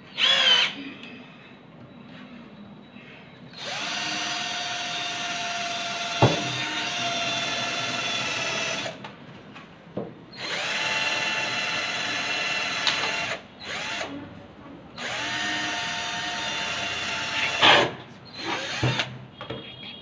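Cordless drill-driver running in three long steady bursts of a few seconds each, each spinning up and stopping sharply, as it works into the PVC fan blade and plastic hub disc. A brief spin-up comes first, and there is a sharp click in the middle of the first run.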